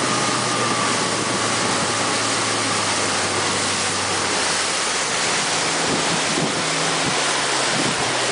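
Wind rushing over the microphone together with the wash of sea water around a boat, with the low steady hum of the boat's engine underneath that fades out about halfway through.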